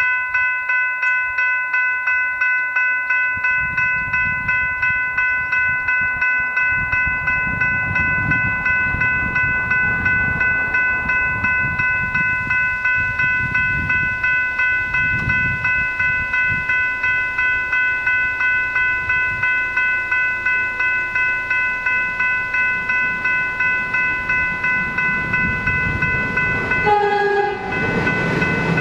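Level crossing electronic bells (General Signals Type 3 E-bells) ringing in a fast, even rhythm of about three strikes a second, warning that the boom gates are down. Near the end an approaching suburban electric train sounds a short horn blast, and its running noise starts to rise.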